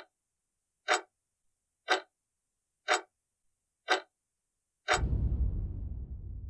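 Clock-tick sound effect: five ticks about a second apart, then a sixth tick that lands with a deep boom, which fades slowly.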